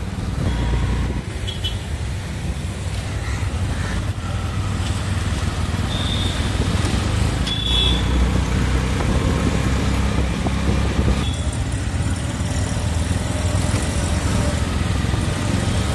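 Street ambience of road traffic: a steady low rumble, with a few short high tones now and then.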